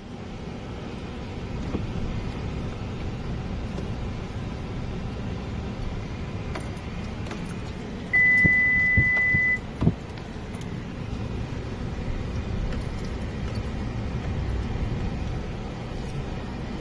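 Car driving on a paved road, heard from inside: a steady low rumble of engine and tyres. About eight seconds in, a single steady high beep sounds for about a second and a half, with a couple of sharp clicks around it.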